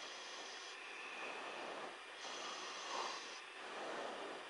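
Faint hiss of radio static on an air traffic control channel between transmissions, swelling and fading in slow waves about every two and a half seconds.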